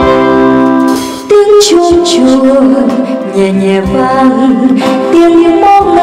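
Accompanied song: held instrumental chords give way about a second in to a woman singing a wavering, ornamented vocal line over the backing music.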